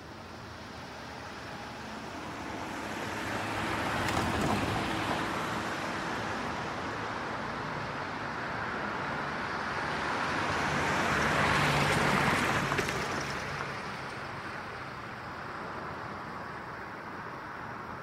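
Very light distant activity ambience: a steady wash of noise that swells twice, first about four seconds in and more loudly around eleven to twelve seconds, then eases off.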